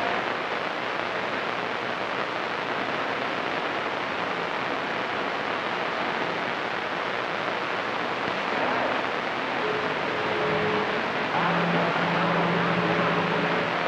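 CB radio receiver static on channel 28: an even rushing hiss of band noise from the speaker, with a few faint steady tones from other signals coming through in the last few seconds.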